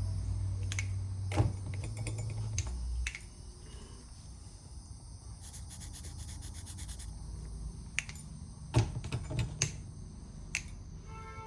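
Scattered light clicks and taps from engine parts being handled and marked, over a low steady hum that stops about three seconds in.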